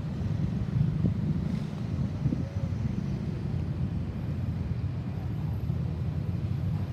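Steady low rumble of road traffic, with wind buffeting the microphone; no siren is sounding.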